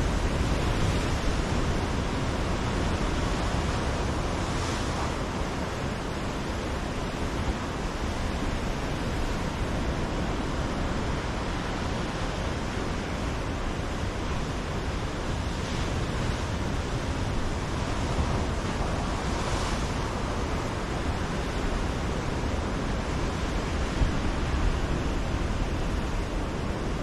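Ocean surf breaking on a rocky shoreline: a steady wash of waves, with a few louder surges as sets break about 5, 16 and 20 seconds in.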